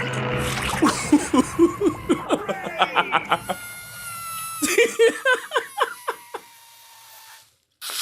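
Rapid staccato laughter in two runs of short pitched bursts, with a high gliding tone between them and a steady tone after that cuts off just before the end.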